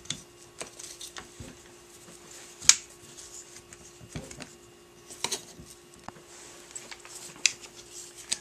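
Two-piece quad rail handguard halves clicking and knocking against each other and the AR pistol's barrel nut as they are worked into line to snap together. There are scattered sharp clicks, with the loudest about two and a half seconds in.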